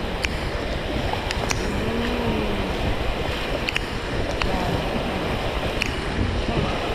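Whitewater river rapids rushing and splashing around an inflatable raft, a steady hiss of water with scattered small sharp ticks.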